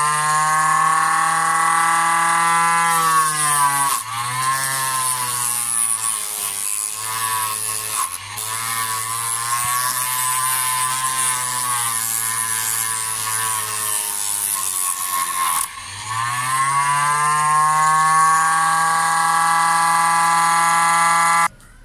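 Homemade disc sander's 775 DC motor running with a steady whine while the jaws of steel side-cutting pliers are ground against the sanding disc. The motor's pitch sags under load from about four seconds in, rises back once the pliers come off near the end, and the sound then stops abruptly.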